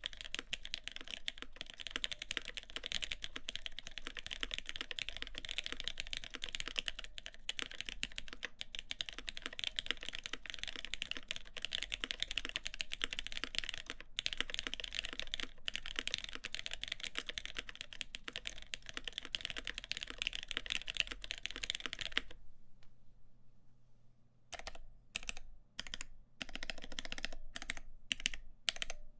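Fast, continuous typing on a CAKE60 mechanical keyboard with lubed Gateron X linear switches in a full aluminum plate, with GMK keycaps. The typing stops for about two seconds a little past two-thirds through, then resumes in short bursts.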